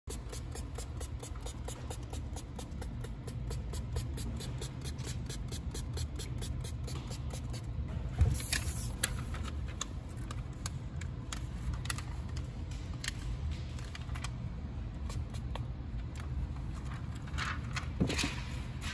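Hands working at a car's instrument cluster: light scraping and handling clicks over a steady low hum, with a sharper click about eight seconds in and a few more near the end.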